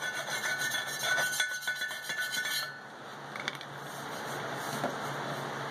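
Hand file scraping along the steel rim of a lawn mower wheel, filing off weld slag and burrs so they cannot puncture the inner tube. The rasping stops about two and a half seconds in.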